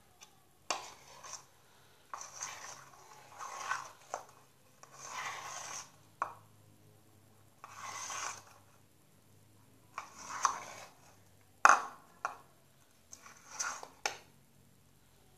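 Sticky flour slime mixture being stirred in a container: a series of short scraping strokes, one every second or so, with a few sharp knocks, the loudest about two-thirds of the way in. The mixture is still sticky at this stage.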